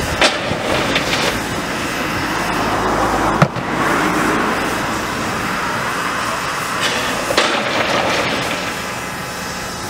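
Coal tipped from buckets into a steam locomotive's bunker, rattling down in several short pours, with one sharp knock of a bucket about a third of the way in. A steady hiss of steam from the locomotive runs underneath.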